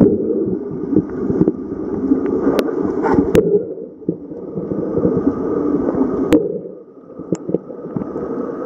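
Swimming-pool noise heard through an underwater camera: a steady muffled rumble with scattered sharp clicks, dipping briefly about seven seconds in.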